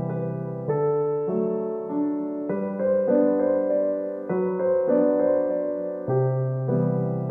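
Background piano music: slow chords struck every second or so, each ringing and fading.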